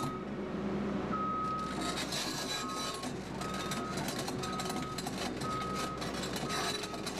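Caterpillar 320C excavator's travel alarm beeping about once a second, a single steady tone, over the machine's diesel engine running with some clattering.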